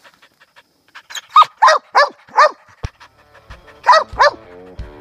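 Treeing cur barking treed up a tree at a squirrel: a run of four quick barks, then a pause and two more barks near the end.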